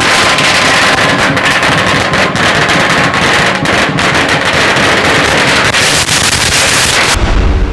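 A string of firecrackers going off in one dense, continuous crackle that cuts off abruptly near the end.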